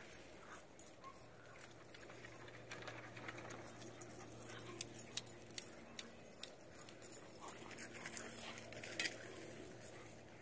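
Small dogs playing and scuffling about in dry wood mulch, with scattered light clicks and the faint jingle of collar tags.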